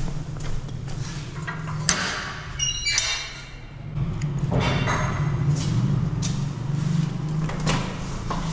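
Metal keys jingling and clinking as they are handled, among scattered clicks and knocks, with a short bright jingle about two and a half seconds in.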